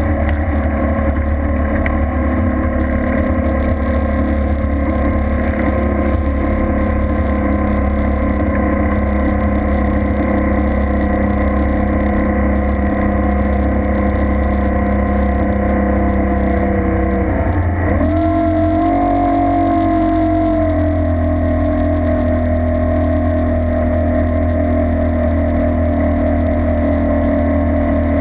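Boat engine running at speed over open water. Its pitch holds steady, dips sharply about two-thirds of the way through, then climbs back higher and settles.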